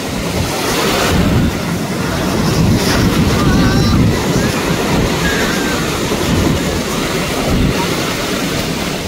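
Sea surf washing through the shallows, swelling and easing, with wind buffeting the microphone.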